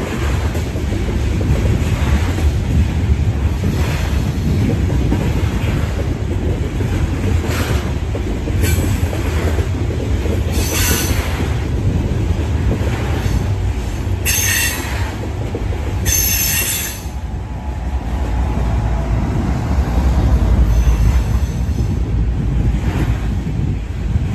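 Loaded coal hopper cars of a freight train rolling past, a heavy steady rumble with the clack of wheels and several short, high-pitched wheel squeals about halfway through.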